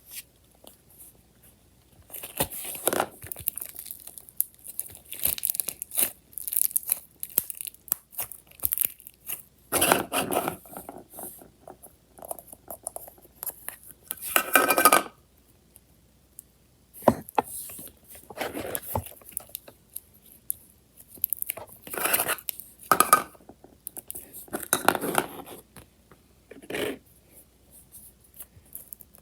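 Slime being squeezed, stretched and poked by hand, giving irregular bursts of crackling, crinkling and popping with short pauses between handfuls.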